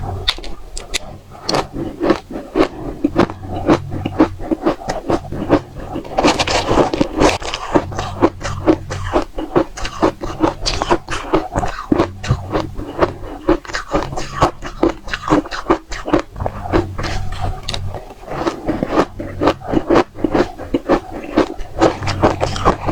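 Close-up crunching of dry-textured frozen matcha ice being bitten and chewed: a fast, dense run of sharp cracks, with a heavier grinding crunch about six seconds in.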